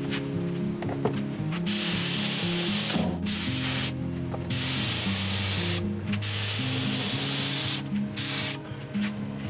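Gravity-feed air spray gun hissing as it sprays top coat, in about five passes of up to a second and a half each with short pauses as the trigger is let go. Background music plays underneath.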